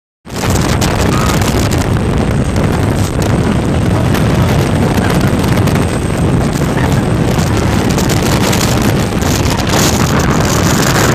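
Heavy wind buffeting the microphone as a tour speedboat runs at speed, mixed with the rush of the boat's engine and water spray. The noise is loud and steady throughout.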